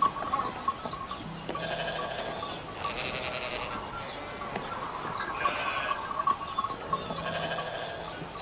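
A flock of sheep and goats bleating, with wavering calls repeating every second or two.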